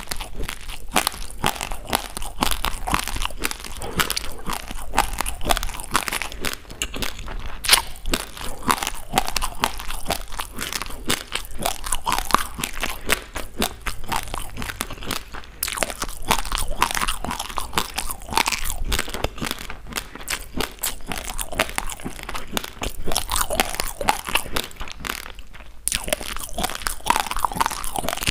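Raw basmati rice grains being chewed: a dense, continuous crunching of sharp cracks and crackles, with two brief pauses, about halfway and near the end.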